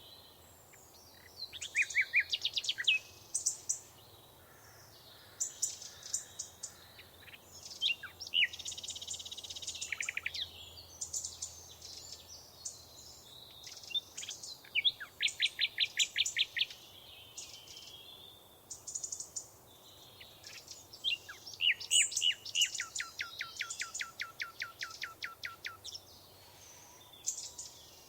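Several wild songbirds singing and calling, with short chirps and a few fast trills of evenly repeated notes, one of them running about three seconds near the end.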